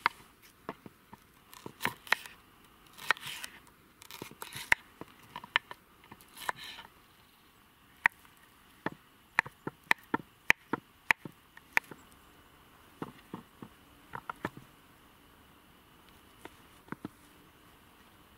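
Kitchen knife chopping vegetables and potatoes on a wooden cutting board: irregular sharp knocks of the blade hitting the board, with short slicing scrapes in the first several seconds.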